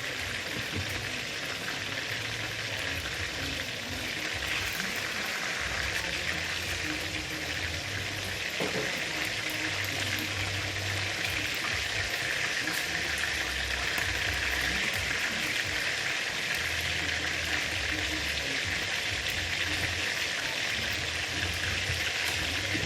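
Chicken wings frying in hot oil: a steady sizzle with fine crackling, growing a little louder over the first few seconds.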